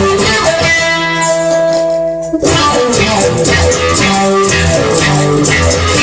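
Guitar-led instrumental music with a bass line. A chord is held for about a second and a half near the start, a short break follows, then picked guitar notes carry on.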